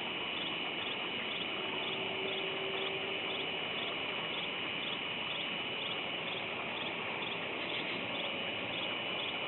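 Steady high-pitched animal calling from a pond: short pulses repeating about twice a second over a constant high hum and hiss.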